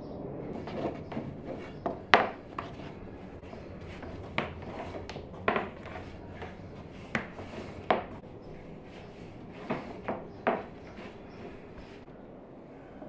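A long, thin wooden rolling pin rolling and rubbing over a sheet of baklava dough on a wooden board, with about a dozen sharp wooden knocks against the board, the loudest about two seconds in. The rubbing dies down near the end.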